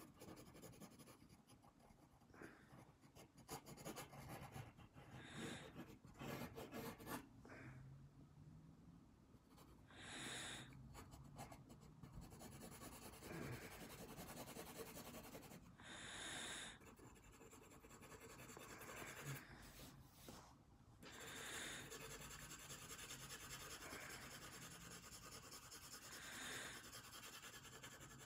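Graphite pencil scratching and shading on drawing paper in faint, irregular strokes, with a louder soft hiss every five seconds or so.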